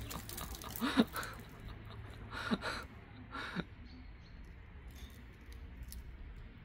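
Mother cat giving three short, soft calls: one about a second in, then two more close together a little later.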